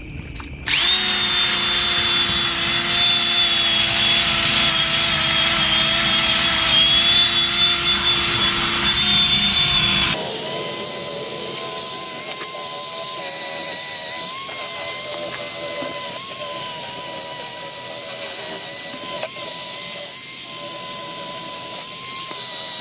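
Power drill with a polishing attachment spinning steadily, buffing metal polish into a wheel. It starts up about a second in, and its tone changes abruptly about ten seconds in.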